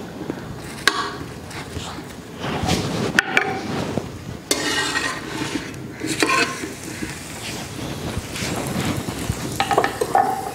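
Steel spoon scraping and clinking on a hot iron tawa as oil is spread over a paratha, with the oil sizzling; the hiss grows louder for a moment about four and a half seconds in.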